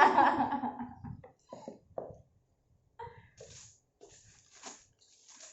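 A person's non-speech vocal sounds: a loud drawn-out voiced outburst in the first second, then a few short vocal bits and several short breathy noises later on.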